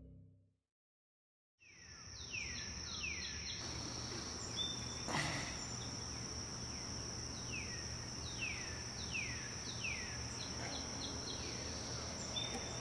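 Quiet outdoor ambience under trees: birds giving a series of short calls that slide downward in pitch, over a constant high-pitched tone. It starts after a second or two of silence, and a faint knock comes about five seconds in.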